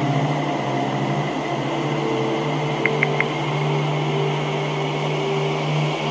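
Meditative singing-bowl drone: several sustained low tones pulsing slowly over a steady hiss. Three quick high pips come about three seconds in.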